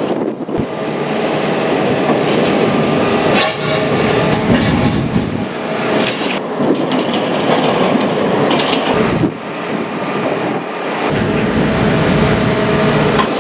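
Compact tracked demolition machine with a hydraulic shear cutting and tearing the steel plates of an oil tank's floating roof. The metal grinds and scrapes over the machine's running hydraulics in a dense, continuous din, with a deeper rumble near the end.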